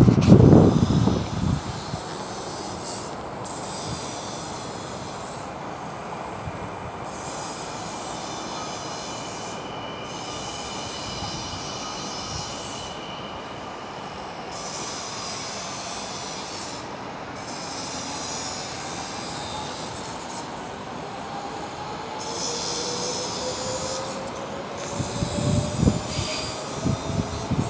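Yellow-and-blue NS (Dutch Railways) passenger train running on the track beside the platform, with a steady rolling rumble and wheel squeal that comes and goes. A rising whine builds over the last several seconds. Loud low rumbling bursts come in the first second or two and again near the end.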